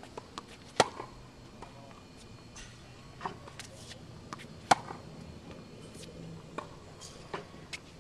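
Tennis racket striking the ball on forehands: two sharp pops about four seconds apart, with fainter ticks and taps in between.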